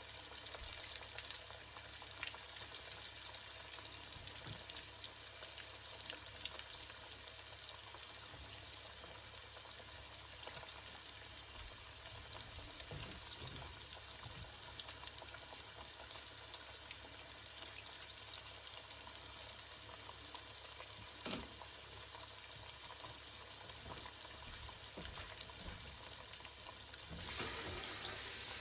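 Flour-dredged salmon and shrimp sizzling in hot frying oil, a steady hiss with fine crackles. Near the end a louder, brighter hiss comes in suddenly.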